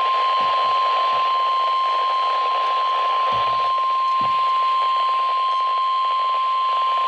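NOAA Weather Radio's 1050 Hz warning alarm tone: one steady, unbroken beep over radio receiver hiss, the signal that a warning message is about to follow.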